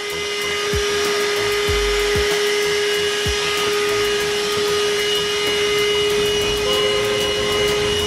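Corded handheld car vacuum cleaner running with a steady high whine as its nozzle sucks dirt and debris off the carpet.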